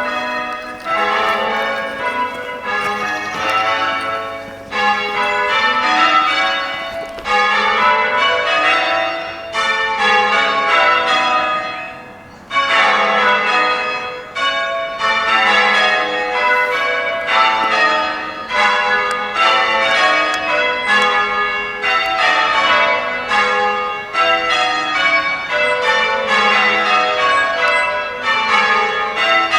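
The front six of an eight-bell ring of church bells being rung full circle, the bells striking one after another in quick succession, with a brief lull about twelve seconds in before the strikes resume.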